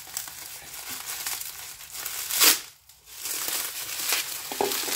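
Packaging being torn open and crinkled by hand as a boxed part is unwrapped, a steady crackle with one louder rip about two and a half seconds in.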